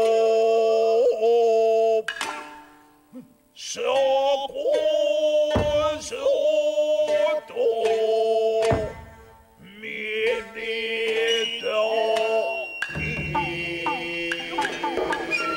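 Gidayū jōruri: a male chanter sings long, wavering held notes, punctuated by single sharp plucks of the shamisen. The accompaniment grows fuller about two seconds before the end.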